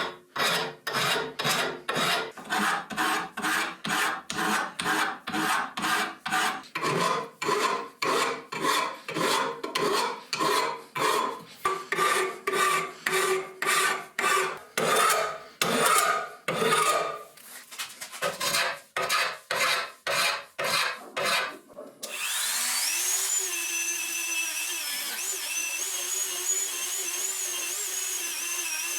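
Back-and-forth hand abrading strokes on the rusty metal hand vice, about two a second, then a small high-speed power tool starts about 22 seconds in and runs with a steady whine that wavers in pitch as it is loaded.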